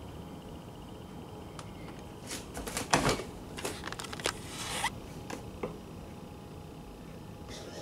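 Handling noise close to the microphone: a flurry of rustles and clicks, loudest about three seconds in, with a short scraping rise near the end of the flurry.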